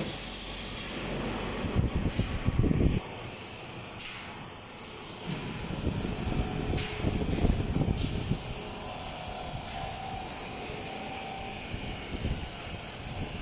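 Handheld laser welding machine at work: a steady high hiss, with a burst of crackling about two seconds in.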